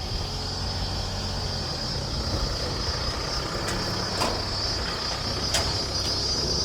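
Truck engine running steadily with a low rumble, a few light knocks about halfway through, over a steady high buzz of insects.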